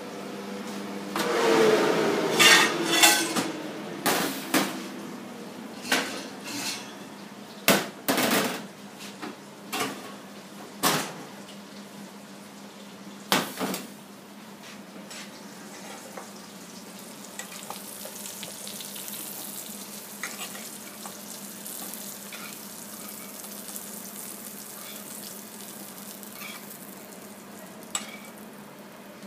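Kitchen cooking sounds: pans and utensils clattering and knocking on a stainless-steel counter, with food sizzling in hot fat. The loudest noisy rush comes a second or two in, the knocks bunch in the first half, and the second half settles into a quieter steady sizzle over a low steady hum.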